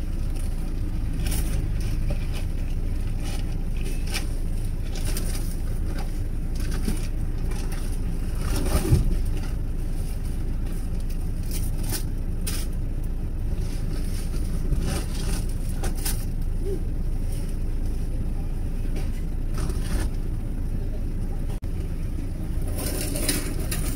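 Car engine running with a steady low rumble, with scattered light knocks and clicks over it.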